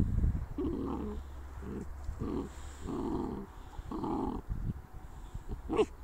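Armenian gampr puppies growling over bones, about five short low growls in a row, with a short sharp sound near the end.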